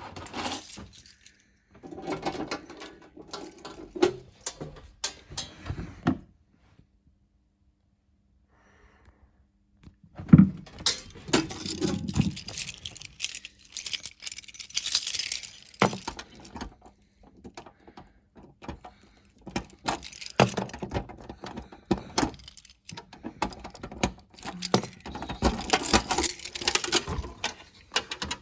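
Handling noise: irregular clicking, rattling and rustling, as of keys or small hard parts being handled. It stops for about four seconds about a third of the way in, then picks up again.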